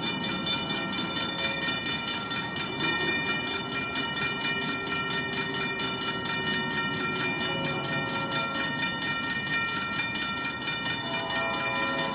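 Railroad grade-crossing bell ringing in a fast, even rhythm over the low rumble of an approaching GP40FH-2 diesel commuter train. A train horn starts sounding near the end.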